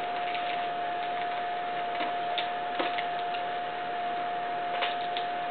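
A few faint clicks and rustles from handling a boxed die-cast model excavator and its packaging, over a steady background hiss with a constant high hum.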